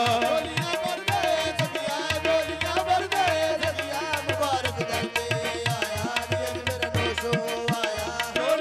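Live Punjabi devotional music: a sustained melody over a steady hand-drum beat, in a passage without sung words.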